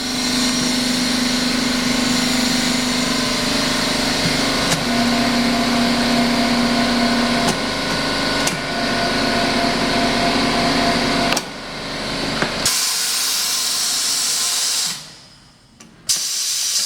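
Tire changer's electric motor running with a steady hum, its note shifting at a few clicks. It stops about eleven seconds in. Compressed air then hisses in two long stretches with a brief break near the end.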